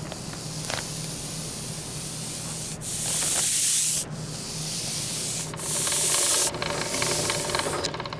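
Steady rubbing, hissing noise over a low hum, broken by two loud bursts of high hiss, each about a second long, that start and cut off abruptly around the middle.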